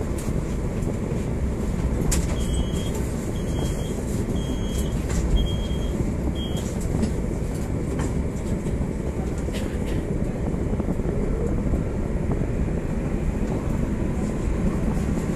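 Steady low rumble and hum of a PCC tram heard from its cab, standing and then pulling away about halfway through, with a faint rising motor whine late on. Five short high beeps sound about a second apart, from about two seconds in.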